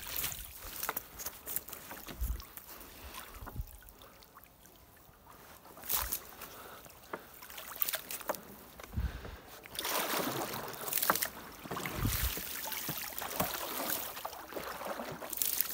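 Water splashing and dripping around a small boat, with scattered knocks and clicks, as a floating gill net is pulled up by hand and checked for fish. The splashing grows denser from about ten seconds in.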